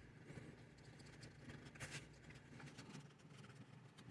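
Near silence with faint, irregular clicks and scrapes of a craft knife blade cutting a strip of leather on a cutting mat.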